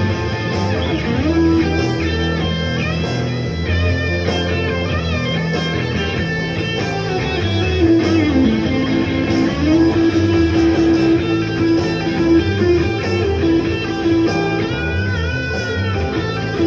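Blues guitar lead playing over a steady low accompaniment, with bent notes and long sustained notes, one held for several seconds near the middle.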